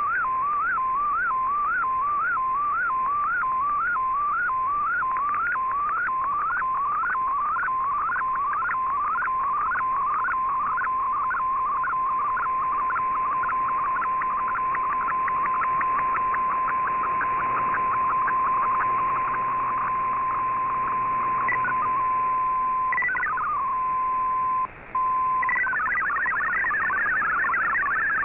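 Shortwave digital broadcast tones heard through a communications receiver: the warbling sweeps of an MFSK picture transmission sending an image line by line. They come as repeated rising sweeps, about two a second and then closer together. About three quarters of the way through they give way to a steady tone with a brief dropout, and near the end to the rapid, hopping multi-tone chatter of MFSK text data.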